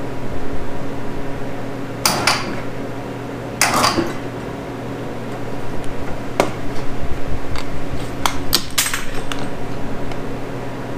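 Several sharp metal clinks and clatters from hand tools and small parts being handled, spaced irregularly over the few seconds, over a steady low electrical hum.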